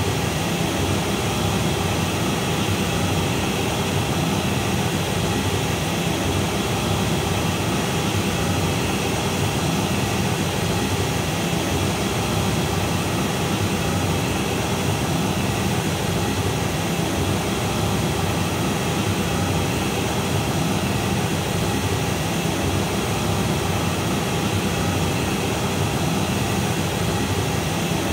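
Steady test noise, an even hiss spread from the low bass to the top, played through a JBL SRX815 and SRX828SP PA system for a Smaart acoustic measurement.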